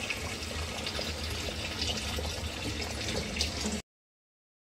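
Mutton stew simmering in its pot: a steady hiss with small crackling bubble pops over a low hum. It cuts off suddenly a little before the end.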